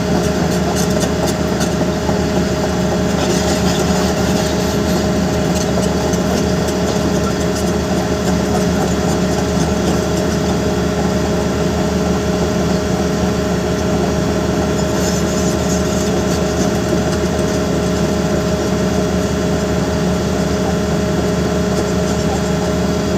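Heavy diesel engine of a Sany SY350 excavator running steadily, with a constant hum and a few steady tones.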